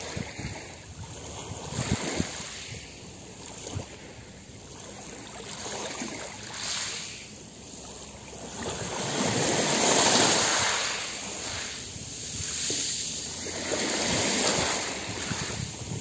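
Small sea waves lapping and washing onto the shore, the wash swelling and ebbing every few seconds and loudest about two-thirds of the way through.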